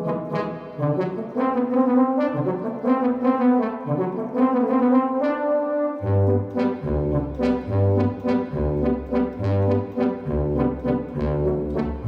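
Yamaha DX7 FM synthesizer playing a brass-like patch: a tune over chords, with sharp note attacks, and a pulsing bass line that comes in about halfway through.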